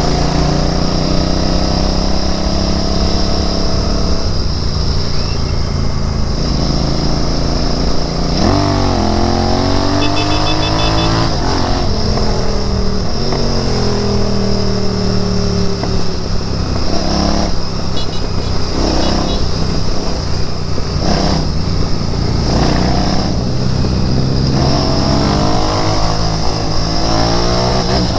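Royal Enfield Interceptor 650's parallel-twin engine running while the motorcycle is ridden. Its pitch falls and rises again and again as the bike slows and speeds up, with a sharp rise about eight seconds in.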